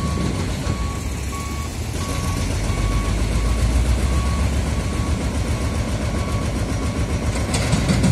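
Heavy diesel demolition machinery running with a low steady rumble while a reversing alarm beeps evenly, about three beeps every two seconds. Near the end comes a run of sharp clattering knocks.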